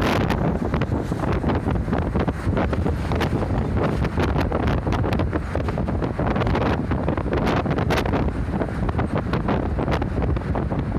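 Steady rush of wind and road noise inside a moving rural route bus, with wind buffeting the microphone.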